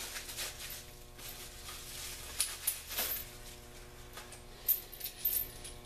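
Small metal hardware (the compressor's wheel axle bolts, washers and nuts) clinking and rattling as it is handled, a string of short metallic clicks with a brief ringing, bunched in two clusters.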